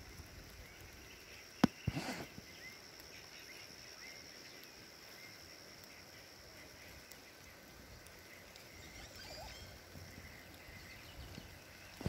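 Faint rural outdoor ambience with scattered distant bird chirps and a steady high-pitched hum. A single sharp click comes just under two seconds in, followed by a brief rustle.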